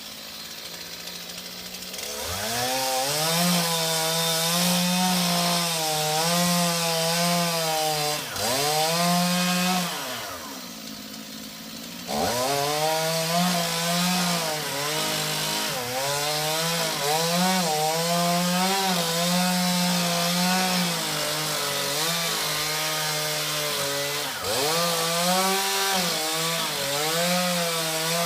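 Chainsaw engine running at high revs, cutting into a palm trunk, its pitch repeatedly sagging under load and recovering. About ten seconds in it drops to idle for two seconds, then revs back up and cuts on.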